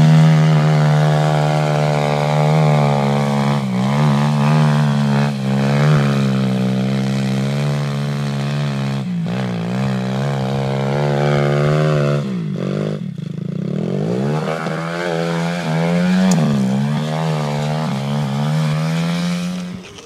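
Quad bike engine running at high revs under load on a sand hill climb, its pitch wavering with the throttle. About twelve seconds in the revs drop sharply, then climb back up, and the sound cuts off just before the end.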